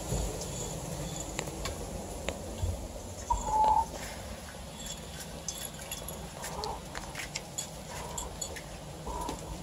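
Five-week-old beagle puppies giving a few short, soft yips, the loudest about three seconds in. Scattered scratching and rustling of paws in wood-shaving bedding runs under them.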